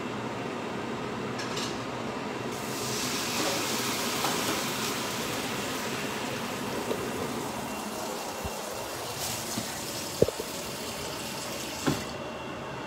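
Kitchen tap running: water hissing into a sink, turned on a few seconds in and shut off just before the end. Two sharp knocks sound near the end.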